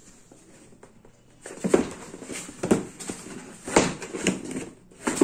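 Cardboard shoe box being handled and its lid worked open: a run of irregular scrapes, rubs and light knocks of card on card and on the table, starting about a second and a half in.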